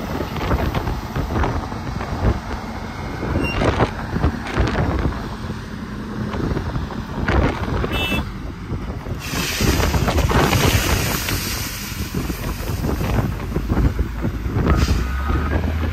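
Heavy truck running, with wind buffeting the microphone. Near the end a truck's reversing alarm starts beeping over a steady low engine note.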